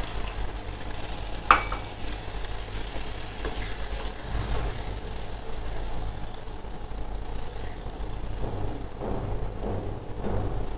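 Water poured into a wok of simmering puti fish curry, then a wooden spatula stirring through the gravy, with a sharp knock about a second and a half in. A steady low hum runs underneath.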